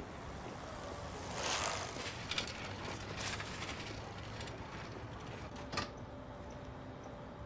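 A bicycle riding past: a rush of noise that swells and fades about a second and a half in, with light mechanical clicking, and a single sharp click about six seconds in.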